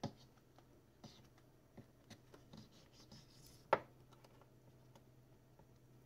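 Plastic pry tool scraping and clicking along the seam of a Lenovo S5 K520 phone's back cover as it is prised open. There is a sharp click at the start, lighter ticks and scratching after it, and the loudest snap just under four seconds in.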